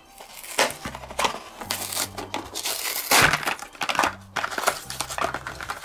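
Toy packaging being crumpled and torn open by hand: irregular crinkling and crunching, loudest about three seconds in, over background music.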